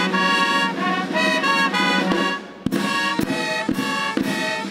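A military brass band of trumpets, tubas and saxophones playing a tune in held, changing notes. A bit past halfway the drums come in, striking a steady beat about twice a second.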